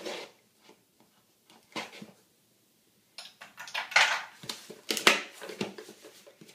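A cardboard subscription box and its packaging being handled: a few light knocks and taps, a short pause, then a stretch of rustling and clattering in the second half.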